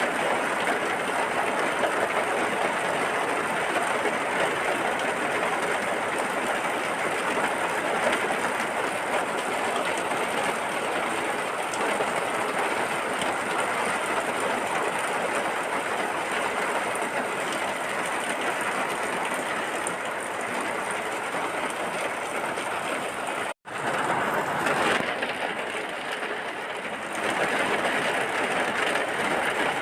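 Steady heavy rain, an even rushing hiss. It cuts out for an instant about three-quarters of the way through.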